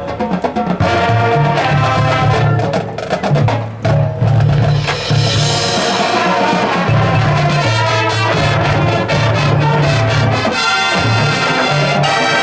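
Marching band playing its field show, brass and percussion together, with a burst of sharp drum and percussion hits in the first few seconds under sustained brass chords.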